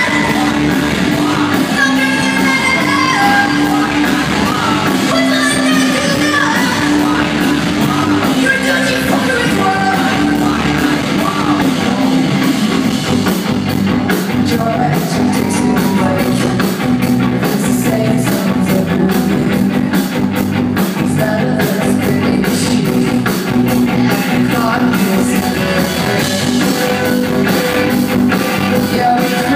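Rock band playing live: electric guitars, bass and drums, with a woman singing into the mic. The drums and cymbals grow busier about halfway through.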